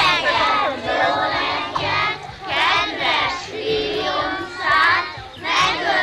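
A group of young children singing together in unison, in short rhythmic phrases.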